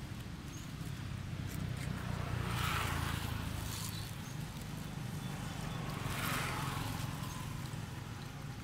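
Steady low outdoor rumble, with two louder swells of hiss, about three and six seconds in, that rise and fade over about a second each.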